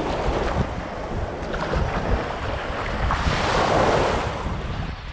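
Small waves washing in at the shoreline, with wind buffeting the microphone; the wash swells up about three seconds in and falls away.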